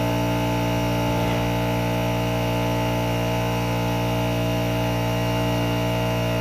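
Electric air compressor motor running with a steady, even hum.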